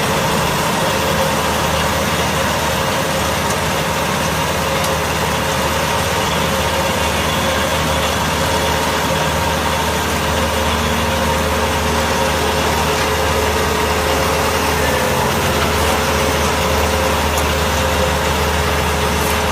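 Tractor engine running steadily while it drives a Maschio Gaspardo Trotter 125 round baler in the field, a continuous mechanical drone with a steady hum.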